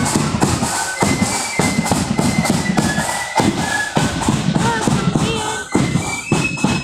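Marching flute band playing: a high flute melody of held notes over a steady beat of bass and snare drums.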